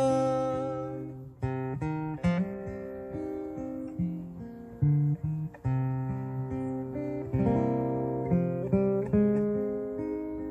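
Acoustic guitar playing an instrumental passage of plucked and strummed chords. A man's held sung note dies away about a second in.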